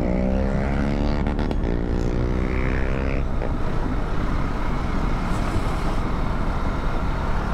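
KTM Duke motorcycle engine revving and pulling under acceleration, its exhaust note holding steady for about three seconds, then fading into steady engine and wind rumble.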